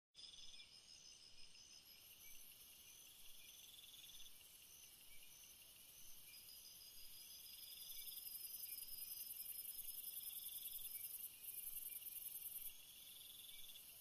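Faint night chorus of several insects calling at once in a jungle: a steady high-pitched shrill buzz, rows of short repeated chirps, and a lower trill that swells and fades about every three seconds.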